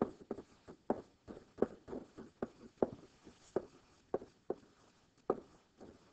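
A stylus tapping and knocking against a writing surface as words are handwritten: irregular sharp taps about two a second, sparser near the end.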